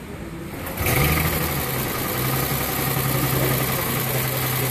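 Freshly rebuilt Mercedes-Benz S400 Hybrid 3.5-litre V6 starting up about a second in with a brief flare, then settling into a steady idle.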